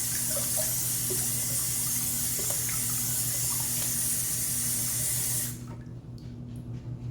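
Water running from a tap into a sink to rinse off the alum after a wet shave, shut off abruptly about five and a half seconds in, followed by a few faint drips. A steady low hum runs underneath.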